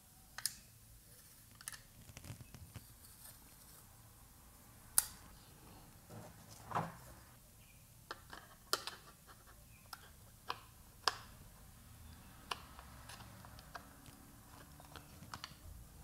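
Faint, scattered clicks and taps of a Western Digital Blue SATA SSD and a plastic hub enclosure being handled, as the drive is lined up with its connector and pushed into the drive bay. The sharpest click comes about five seconds in.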